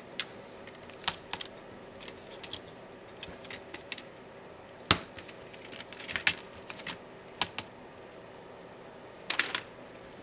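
Irregular sharp clicks and taps of small tools against plastic and metal laptop parts as they are handled, with one louder click about five seconds in and a quick cluster of clicks near the end.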